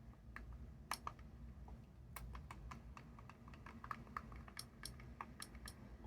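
Faint, irregular clicking of an iPod Mini's click wheel and buttons being pressed in a test; the click wheel is still broken.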